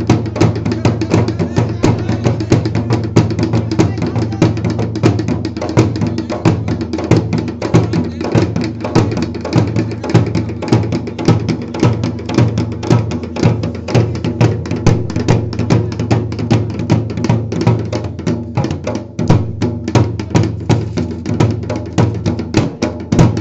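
Garhwali dhol drum beaten with a stick and the bare hand in a fast, steady folk rhythm.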